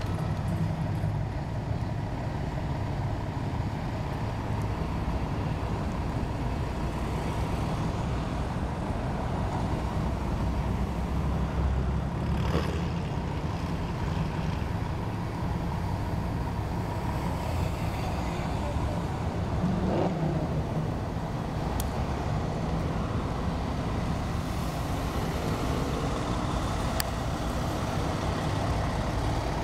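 Steady low rumble of idling engines from the emergency vehicles, mixed with road traffic. There is a brief louder sound about 20 seconds in.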